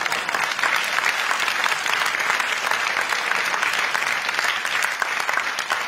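Audience applauding steadily, a dense patter of many hands clapping at once.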